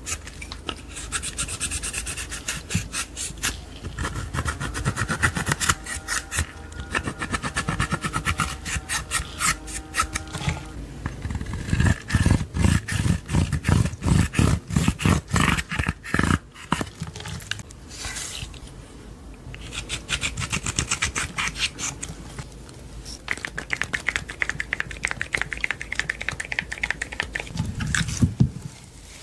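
Clear slime being squished, stretched and folded by hand: a steady run of sticky clicks, small pops and wet rubbing, densest around the middle.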